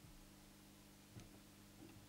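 Near silence: a low, steady electrical hum, with a faint click about a second in.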